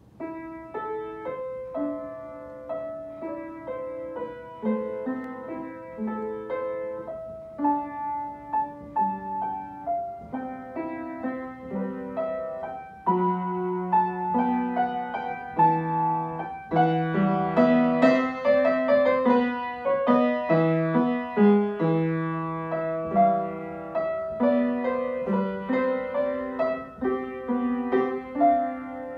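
Upright acoustic piano played solo, a melody over lower accompanying notes. It grows louder and fuller about halfway through.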